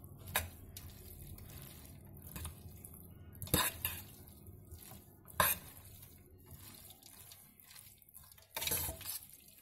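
Metal fork tossing wet tagliatelle in a stainless steel pot: a soft, wet rustling of pasta broken by a few sharp clinks of the fork against the pot, with a louder stretch of mixing near the end.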